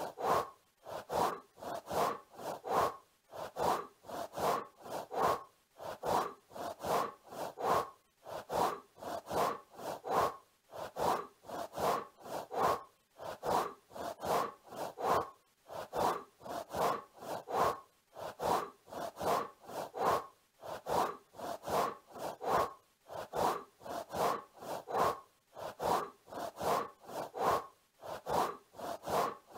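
Looped butterfly wing-flapping sound effect: short fluttering pulses repeating in a steady rhythm, a few times a second.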